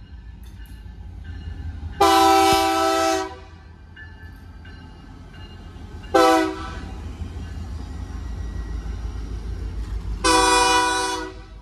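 BNSF diesel freight locomotives passing close, their engines rumbling, while the locomotive air horn sounds a long blast, a short one, then another long blast, the closing part of a grade-crossing horn signal.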